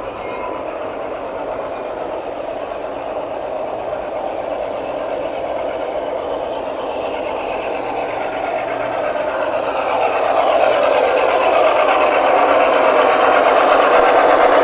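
G-scale model trains rolling along garden-railway track: a steady rumble of wheels on rail that grows louder about ten seconds in.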